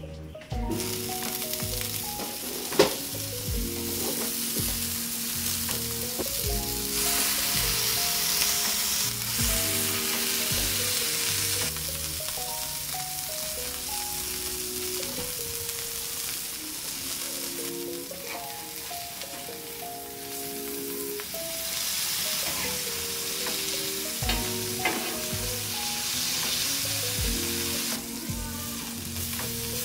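Sausage and burger patties sizzling in oil on a stainless-steel flat-top griddle, a steady hiss that starts about half a second in. There is a sharp knock about three seconds in and a few short clicks later on, all over soft background music.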